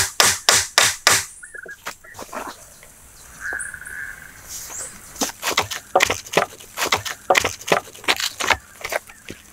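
Wood-on-wood knocking as a log pole is struck against a wooden stake, sharp knocks about three a second. The knocking stops for a few seconds and starts again about five seconds in.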